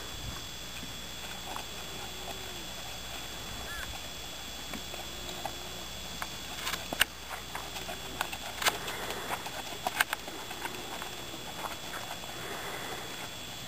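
A ridden horse's hoofbeats on sand arena footing: soft, irregular thuds and clicks, louder through the middle of the stretch as the horse comes close.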